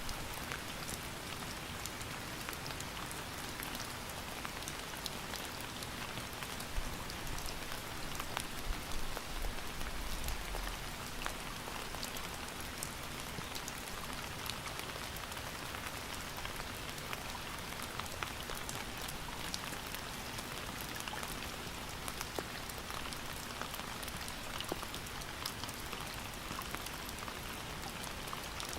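Steady rain falling, a constant hiss with many separate drops ticking sharply against a surface.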